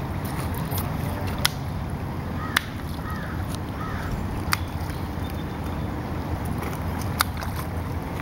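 Steady low rumble of wind on the microphone, with a few sharp isolated clicks scattered through it.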